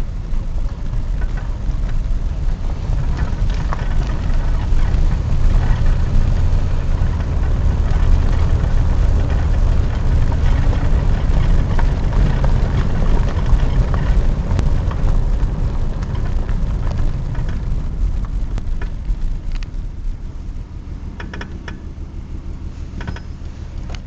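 Car driving slowly on a rough park road, heard from inside: a steady low engine and road rumble with scattered light rattles and clicks, easing off and growing quieter about twenty seconds in.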